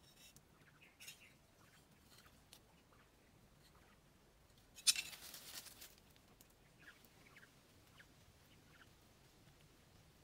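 Faint scattered rustles and small clicks of someone shifting about on dry leaf litter, with one louder, brief crunching rustle about five seconds in.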